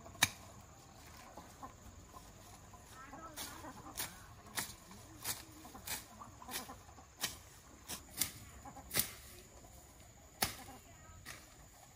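A steady series of sharp knocks, about ten of them at roughly three every two seconds, stopping shortly before the end, with chickens clucking faintly.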